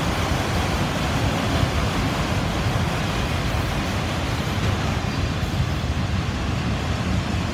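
Freight train of autorack cars rolling past: a steady rumble of wheels on the rails, mixed with wind on the microphone.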